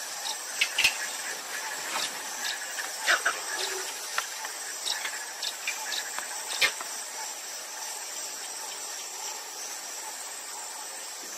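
Wild bush ambience: steady, high-pitched insect chirring, with scattered short clicks and chirps. A few sharp knocks stand out, two of them near the start and one between six and seven seconds in.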